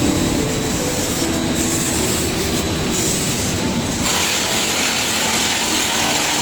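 Machinery running steadily with a dense rattling, rumbling noise that gets brighter about four seconds in.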